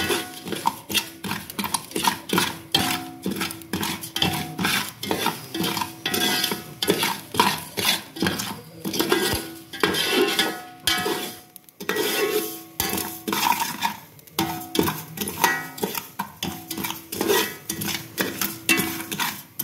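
Metal ladle stirring and scraping crushed rice against the bottom of a metal pot as it roasts in ghee, quick repeated scrapes and clinks. The rice is starting to turn light brown.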